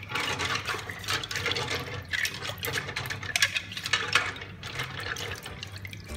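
Tap water running into a stainless steel sink and splashing over a bundle of bamboo skewers being rubbed clean under the stream.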